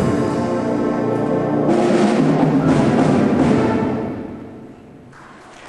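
School concert band of brass and woodwinds with timpani playing a loud held final chord that dies away about four seconds in. Applause from the audience begins faintly near the end.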